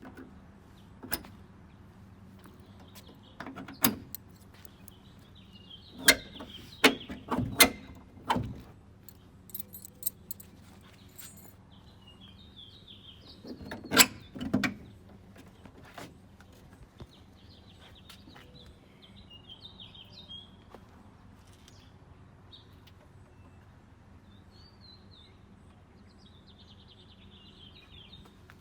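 Scattered knocks and clicks of handling on the car, a cluster of them about six to eight seconds in and the loudest one about halfway through. Birds chirp faintly in the background now and then.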